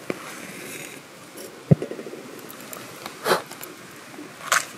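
A small camp stove being lit: a click and a sharp knock of handling, then two short whooshes as the flame catches.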